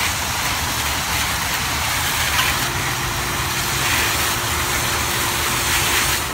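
Garden-hose watering wand spraying a fine shower onto potting soil in plastic tubs: a steady hiss of spray, over a steady low rumble.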